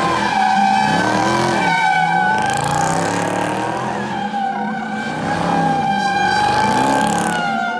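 A car's tyres squealing in one long, slightly wavering screech while its engine revs rise and fall.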